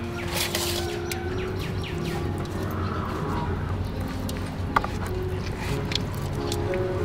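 Hands working a raw marinated whole chicken, pushing lemongrass into its cavity, giving a few soft wet clicks. Birds chirp and soft background music plays underneath.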